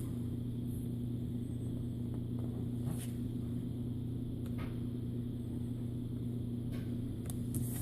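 A steady low electrical-sounding hum, with a couple of faint ticks.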